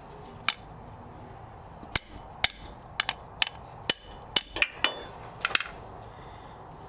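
Hammer tapping a new axle shaft oil seal into a Toyota 4Runner's front differential housing: about a dozen sharp metallic strikes at an uneven pace, some with a brief ring, working the seal in to an even depth.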